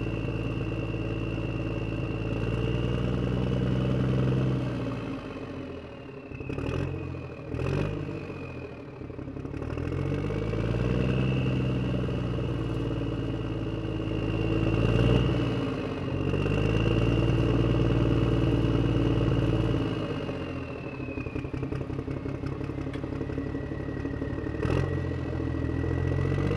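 Tractor engine sound running and speeding up and slowing down several times, with a steady high whine above it. It drops away briefly twice, about six and eight seconds in.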